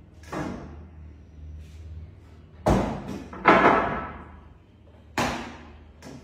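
Wooden bed slats knocking and clattering against a wooden bed frame as they are handled and set down: about five knocks, the loudest two about halfway through, one with a short rattle after it.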